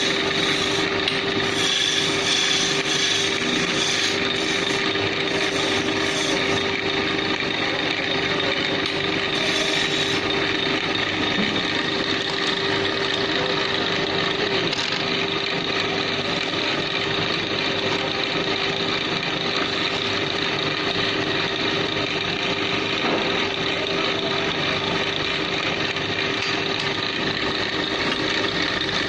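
Wood lathe running with a steady motor hum while a turning tool cuts into the spinning wood of a table leg, giving a continuous scraping, rasping sound. The cutting sounds brighter and more uneven during roughly the first ten seconds.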